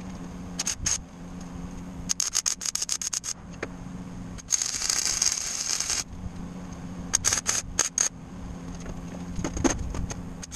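Wire-feed welder tack-welding steel unistrut channel: clusters of short crackling arc bursts about two and seven seconds in, and one steady crackling weld lasting about a second and a half near the middle.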